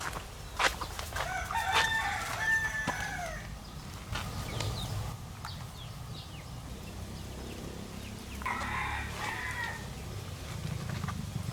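A rooster crowing twice, each crow about two seconds long and dropping in pitch at the end, with a few sharp clicks in between.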